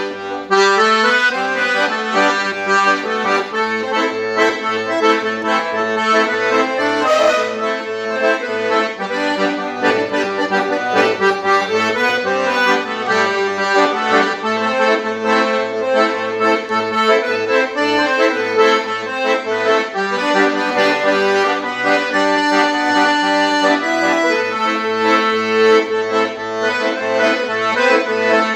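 Instrumental music with no singing: a melody of sustained reedy tones over a bass that pulses evenly, about two notes a second.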